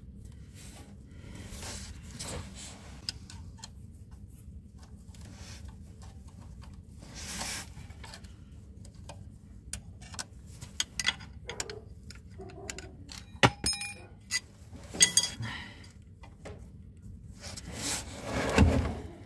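A metal blade clicking and scraping against a connecting-rod cap and its bearing shell, with gloved hands rustling. There is a short metallic ring about halfway through and a louder spell of handling near the end.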